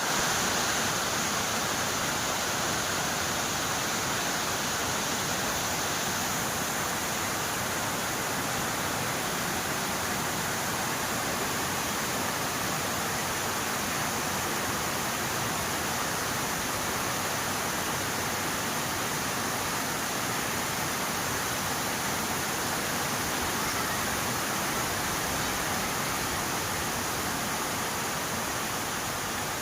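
Steady rain falling, an even hiss of rain with no change in strength.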